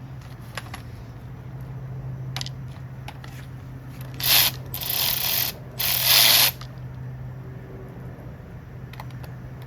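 Ratchet clicking in three quick spells about four to six and a half seconds in, working a bolt loose on a STIHL 020T chainsaw, with a few scattered tool clicks around them.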